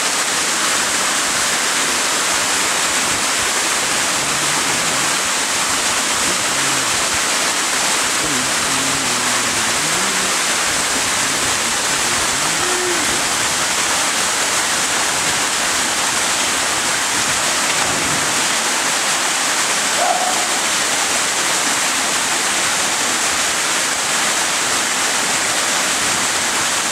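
Waterfall pouring into a rocky gorge: a steady, even rush of falling water.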